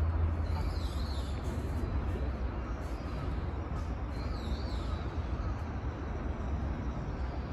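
Steady outdoor background noise with a low rumble, and a small bird calling twice, about half a second in and again about four seconds in.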